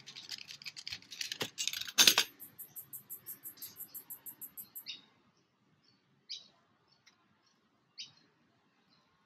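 Crinkling and rustling of a vinyl pool float and foil-backed butyl tape being handled for about two seconds. After that, birds chirping: a fast run of high ticks followed by a few short separate chirps.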